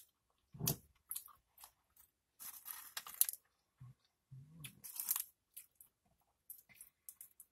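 Doritos tortilla chips crunching and crackling in short, separate bursts as they are picked up and eaten, several crunches a second or so apart.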